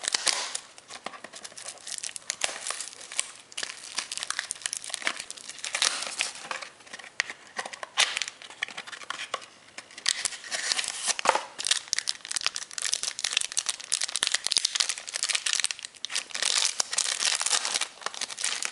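A trading-card pack wrapper being torn open and crinkled, with the cards inside being handled: an irregular stream of crackling and rustling.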